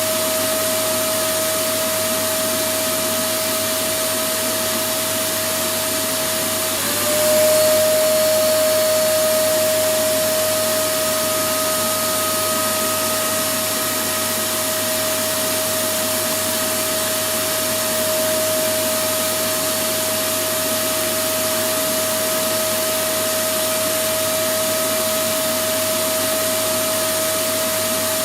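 Electric vacuum cleaner running steadily: a constant rush of air under a steady motor whine. About seven seconds in, the whine dips for a moment and the sound grows louder for a few seconds before settling back.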